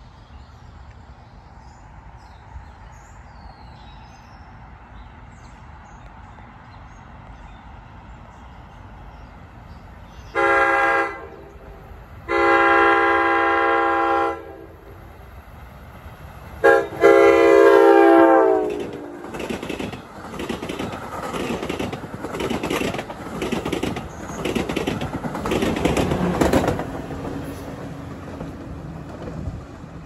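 NJ Transit commuter train sounding its multi-chime air horn about ten seconds in: four blasts, short, long, short, long. It then passes at speed, its wheels clattering rhythmically over the rail joints, and the noise fades as it goes by.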